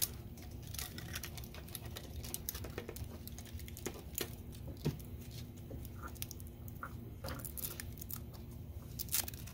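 Handling noise: scattered light clicks, taps and rustles as a bundle of carbon-fibre rods, plastic fittings and wires is gathered together and strapped with Velcro, over a faint steady hum.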